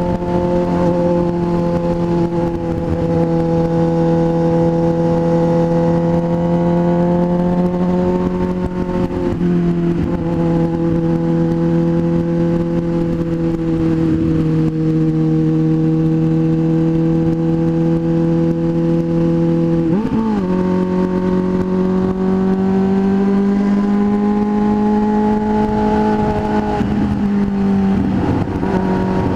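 Motorcycle engine running at a steady cruise with a continuous rush of wind noise. The engine note sags slightly a couple of times. About two-thirds of the way in it wavers briefly, as in a gear change, then holds a little higher.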